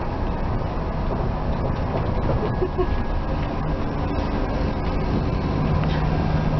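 Steady low rumble of a large diesel engine, with a steady low hum coming in about five and a half seconds in.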